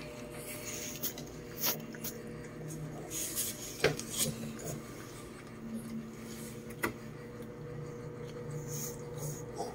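Rubbing and handling noise of hands working on a newborn puppy on a towel, with a few sharp clicks from small scissors, over a faint steady hum.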